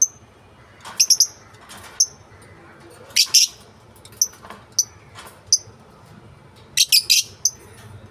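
Lovebirds calling: short, sharp, high-pitched chirps mixed with harsher, scratchy squawks, coming irregularly, sometimes two or three in quick succession.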